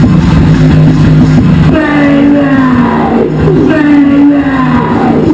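Loud live noise-rock music: a low chord held steady, which gives way about two seconds in to wailing pitched tones that slide downward over and over, about once a second.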